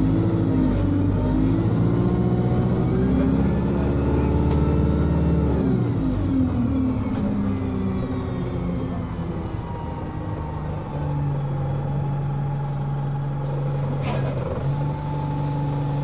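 Alexander Dennis Enviro 200 bus engine revving high under acceleration, with a high whine climbing alongside. About five and a half seconds in the revs fall away and it settles to a lower, steadier hum, and a brief sharp hiss sounds near the end.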